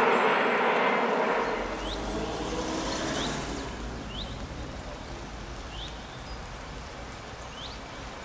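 Jet noise of a climbing Airbus A320 airliner fading away over the first two seconds. Then a bird gives short rising chirps about once a second over a quiet steady background hum.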